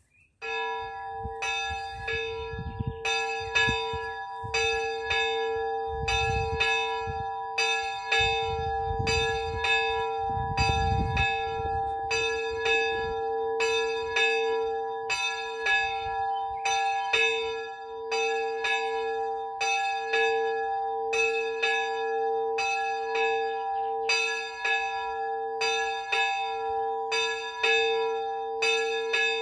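A small 50 kg soul bell (about 42 cm across, note a2), cast by Miklós Gombos, rung by hand-pulled rope in the cemetery chapel's turret. It starts about half a second in and then swings steadily at about three strokes every two seconds, each stroke ringing on into the next.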